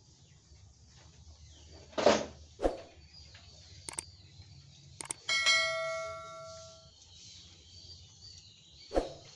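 Subscribe-button animation sound effects: a short swish about two seconds in, mouse clicks around four and five seconds, then a bright bell ding that rings out over about a second and a half, and another swish near the end.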